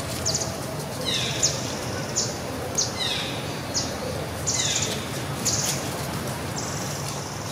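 A bird calling again and again: short high chirps, several sliding down in pitch, about once a second, over a steady outdoor background hiss.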